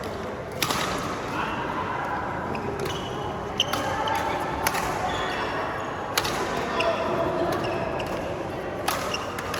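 Badminton rally: a racket striking the shuttlecock in sharp, single hits every one to three seconds, over steady background chatter.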